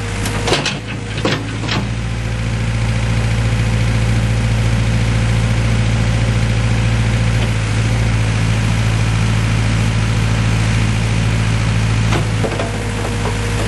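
JCB 1400B backhoe's Perkins four-cylinder diesel engine running steadily, with a few sharp knocks in the first two seconds. The engine note drops slightly about twelve seconds in.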